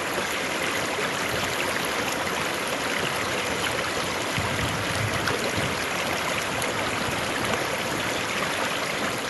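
River water flowing steadily, an even, continuous rush of water.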